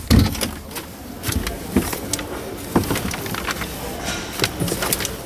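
Truck cab door unlatched and swung open: a heavy knock just after the start, followed by scattered clicks and knocks over steady background noise.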